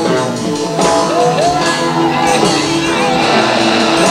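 Dense, layered experimental music: held chords with wavering, voice-like tones gliding up and down over them.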